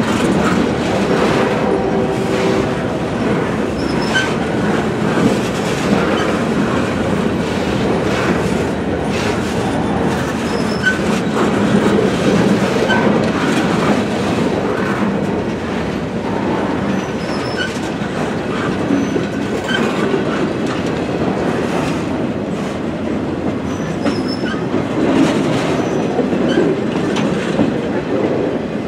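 Freight train of loaded flatcars rolling steadily past, steel wheels clattering over the rail joints, with brief high wheel squeals now and then.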